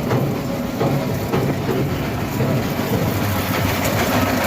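Fairground ride machinery running with a steady rumble and rattle.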